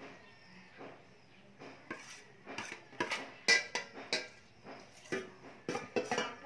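Utensil clinking and scraping against a stainless steel mixing bowl in a run of irregular sharp knocks, while the sticky banana and rice mixture is scooped out.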